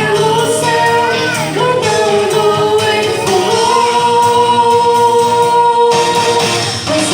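Voices singing a Christmas cantata number with music. About three seconds in, a long note is held steady and then breaks off near the six-second mark.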